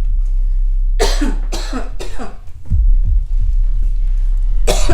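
A sick woman coughing: three harsh coughs in quick succession about a second in, and another near the end, over low background music.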